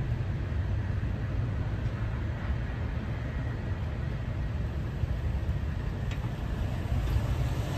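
Steady low rumble of a freight train's tank cars rolling past out of sight, mixed with road traffic.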